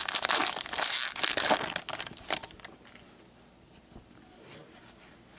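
Plastic wrapper of a hockey card pack crinkling and tearing as it is opened, with lots of sharp crackles, for about two and a half seconds; after that only faint handling ticks.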